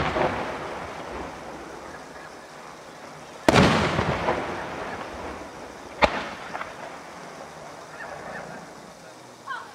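Aerial firework shells bursting overhead: a heavy boom about three and a half seconds in that rolls away slowly, and a single sharp crack about six seconds in, with the tail of an earlier burst fading at the start. Near the end there is a brief wavering tone.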